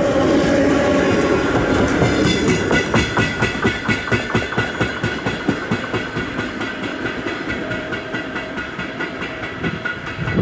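EP2D electric train passing. A steady whine and rush give way, about two seconds in, to a regular knocking from the last car, several knocks a second, which slowly fades as the train moves away.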